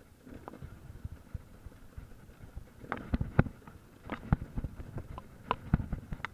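Enduro motorcycle ridden over a rough dirt trail: a low, uneven engine rumble with a run of sharp knocks and rattles from the bumps in the second half.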